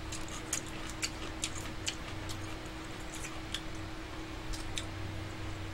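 Eating sounds at a table: small, sharp clicks at an uneven pace, a few a second, from chewing and from chopsticks and utensils, over a steady low electrical hum.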